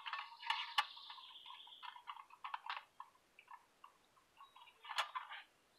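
Thin metal stakes sliding through the holes of a small folding metal camp stove, a Lixada barbecue stove: faint metal scraping and a scatter of light ticks and clicks as the rods seat to set the grate height.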